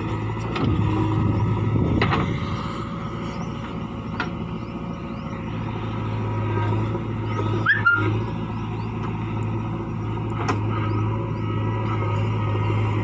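JCB 3DX backhoe loader's diesel engine running steadily as the backhoe digs, the drone rising and easing as the arm loads the bucket with soil and lifts it. A few sharp knocks from the working arm or bucket stand out.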